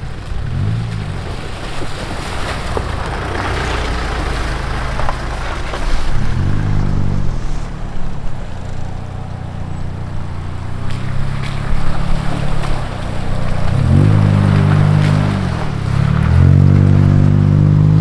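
4x4 vehicle engines revving up and easing off as the vehicles drive through a shallow stream, with water splashing around the tyres. The engine sound swells three times, about six seconds in, again near fourteen seconds, and loudest near the end as a vehicle comes close.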